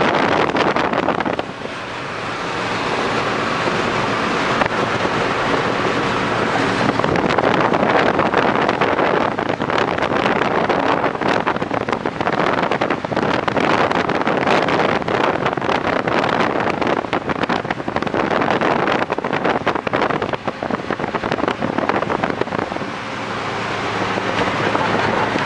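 Highway driving noise heard from an open vehicle window: wind rushing past and buffeting the microphone over a steady hum of engine and tyres at speed, easing briefly about a second and a half in and again near the end.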